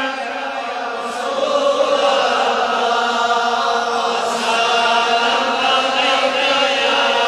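Chanted devotional singing of a Kashmiri naat in long held notes without distinct words. It starts softer and swells about a second and a half in.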